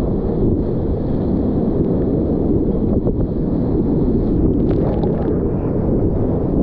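Whitewater rapids rushing around a kayak as a steady, muffled rush, with wind buffeting the microphone. About four and a half seconds in, a burst of spray breaks over the bow.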